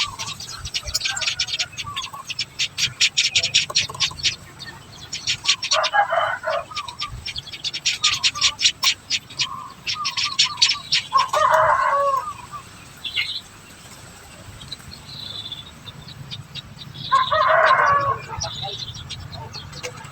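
Small birds chirping in rapid high trains for the first half, with a rooster crowing three times, about five to six seconds apart.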